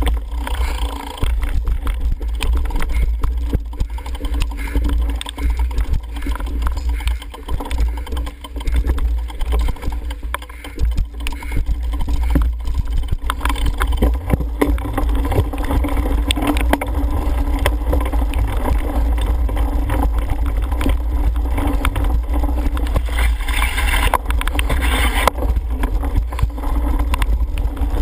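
Wind buffeting a helmet-mounted camera's microphone, with the rattle and knocks of a cyclocross bike riding over bumpy grass and dirt. A louder rushing noise swells briefly near the end.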